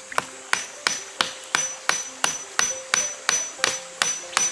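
A metal blade striking wood in a steady rhythm, about three blows a second, each with a short high metallic ring, like a knife or cleaver chopping on a wooden board.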